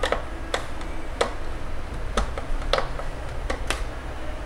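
Irregular small sharp clicks and taps, about seven in four seconds, as hands tighten and handle the plastic fan speed controller and its screw terminals.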